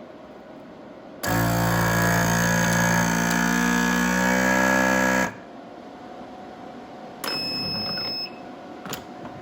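Weston Pro vacuum sealer's pump motor running with a steady buzzing hum for about four seconds, drawing the air out of the bag, then cutting off sharply. Near the end comes a shorter, quieter second sound with a high steady tone, lasting about a second, followed by a click.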